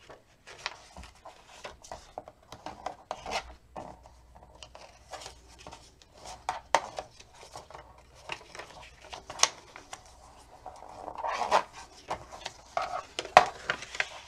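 Cardstock being folded along its score lines and creased down by hand, a string of irregular paper rustles, crackles and light taps, busiest near the end.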